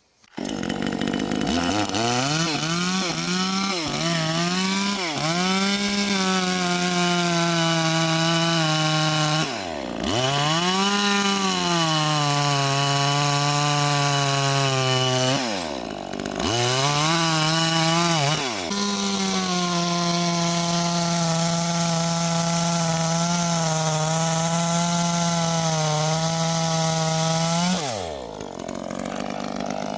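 Neo-Tec 25 cc two-stroke chainsaw with a 12-inch bar running at high revs while cutting through a cedar log. The engine pitch dips and recovers about five times as the throttle is eased and squeezed again. Near the end the revs fall away.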